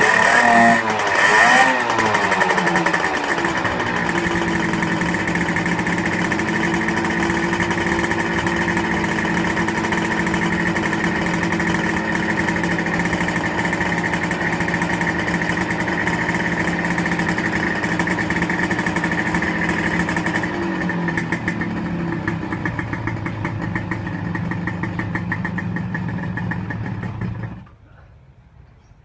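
Engine warming up: a couple of quick throttle blips in the first two seconds, then a steady idle for about 25 seconds before it is switched off and stops suddenly near the end.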